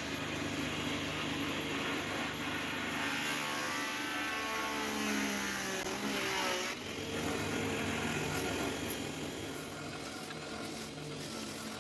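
A motor running steadily. Its pitch falls from about four seconds in, and the sound changes abruptly a little before seven seconds.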